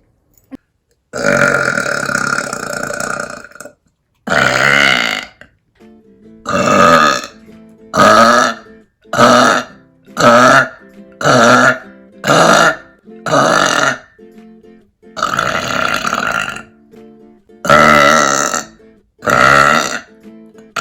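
A woman burping loudly, about a dozen separate burps: one long drawn-out burp near the start, then a run of shorter ones roughly a second apart, and a few longer ones toward the end.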